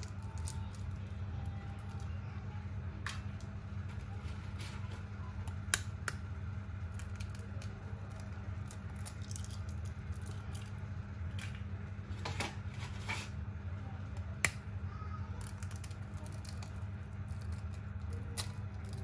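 Knife tip clicking and cracking through quail eggshells as they are opened over a pot: scattered small sharp clicks, with a short cluster of them about two-thirds of the way through, over a steady low hum.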